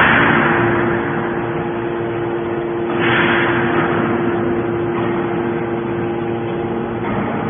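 Hydraulic baler pressing stainless steel scrap: a steady machine hum runs throughout, with a loud noisy burst at the start and another about three seconds in, each fading away over about a second.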